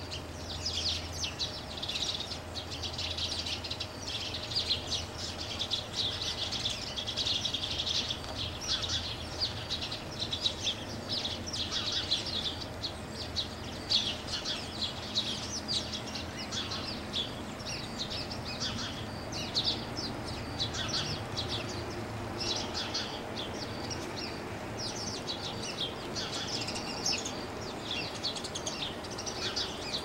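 A flock of small songbirds chirping continuously, many short high chirps overlapping in a steady chatter.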